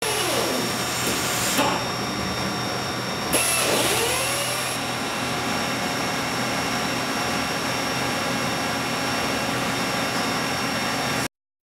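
Waterjet cutting machine running: a steady hissing noise with a constant hum. In the first four seconds a few tones sweep down and back up.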